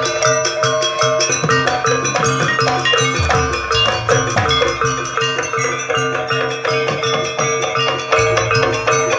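Jaranan dance accompaniment: rapid, evenly repeated metallic mallet notes over drums, with one tone held steadily beneath them.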